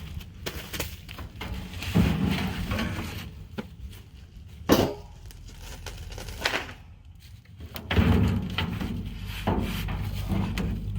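Handling noises from unboxing a smoker: irregular knocks, clunks and scraping of cardboard boxes and parts being moved, with one sharp knock about five seconds in.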